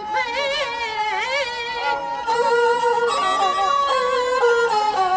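Music led by a bowed fiddle playing a sliding, wavering melody over steady held notes.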